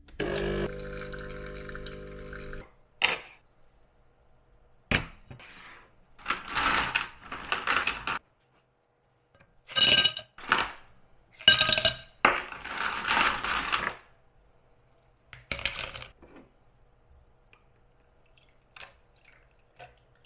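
Making an iced latte: a machine hums steadily for about two and a half seconds, then glass and ice clink several times, and liquid is poured into the glass in a few separate pours.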